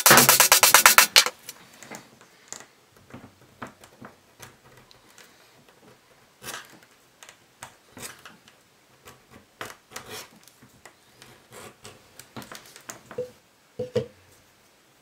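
Hand tools working a leather watch strap: a loud burst of rapid scraping strokes, over a dozen a second, for about a second at the start, then scattered light scrapes, taps and clicks as the blade trims the strap and tools are handled on the cutting mat.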